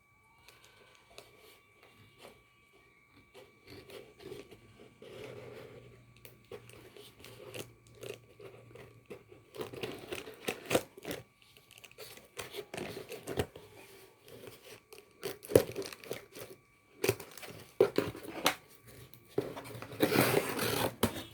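A delivery package being torn open by hand: tearing, crinkling and crunching of the wrapping in irregular bursts, getting louder and busier toward the end.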